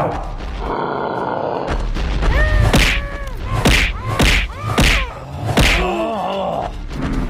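Cartoon fight sound effects: about five sharp punch or whack impacts in quick succession, with short cartoon cries of rising and falling pitch between them.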